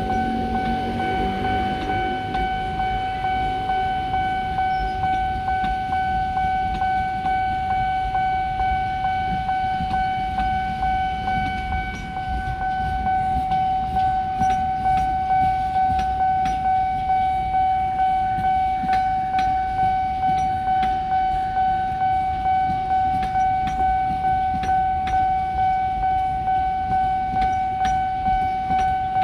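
A level crossing warning alarm sounds one steady high tone without a break. A passenger train's coaches rumble past under it, and from about halfway on their wheels clatter in an even rhythm over the rail joints.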